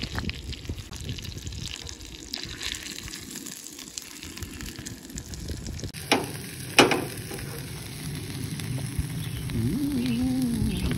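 Food sizzling in a frying pan on a camp stove: a steak, then sliced peppers and onions, with a steady hiss. Two sharp knocks about half a second apart a little past the middle.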